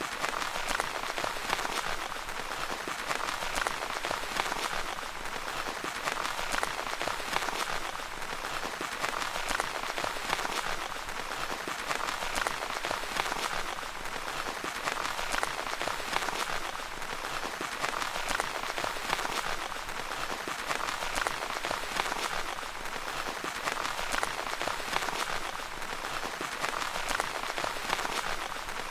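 Steady rain pattering on a tent's fabric, dense patter of drops with gentle swells in intensity every few seconds.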